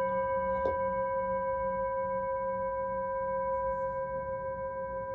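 Singing bowl ringing: one steady tone with several higher overtones and a slow wavering beat, fading slowly. A faint tap sounds about two-thirds of a second in.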